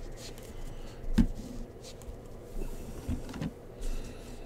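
Trading cards being handled and set down on a table mat: soft rustling with a few short knocks, the loudest about a second in.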